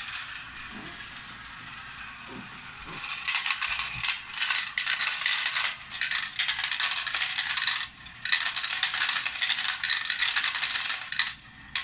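Marbles rattling and clattering through a marble run, in three long spells of busy rattling with short breaks between, starting a few seconds in.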